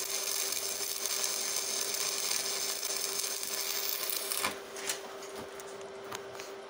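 Stick (MMA) welding arc from an Evrolux IWM190 inverter at about 90–100 A, burning a 3 mm MR-3 rutile electrode: a steady, even hiss of a stable arc that does not sputter or break. It cuts off about four and a half seconds in as the arc is broken, leaving a few faint ticks and a steady hum.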